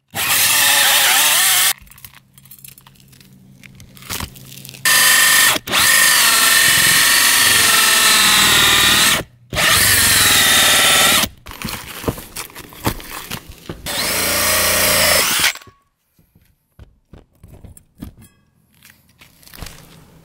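Cordless DeWalt drill driving a 5-inch bi-metal hole saw with a pilot bit through asphalt roof shingles and the roof deck beneath, to cut the opening for a bathroom fan vent cap. The drill runs in several bursts of a few seconds, its pitch wavering as the saw bites, with quieter scraping between, and stops about fifteen seconds in.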